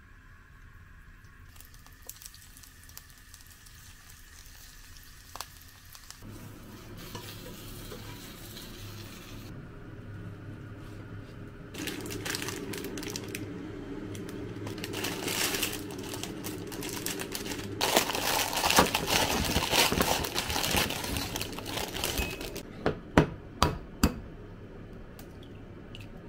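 Vegetable mixture sizzling faintly in oil in a frying pan and being stirred. Later a plastic instant-ramen bag crinkles loudly as it is handled and opened. Near the end come a few sharp taps as an egg is cracked on the bowl.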